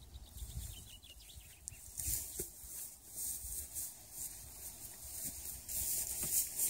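Dry rustling and scraping as a black plastic irrigation hose is dragged through dry grass and stubble, irregular and growing louder in the last second as the hose is lifted. A low rumble runs underneath.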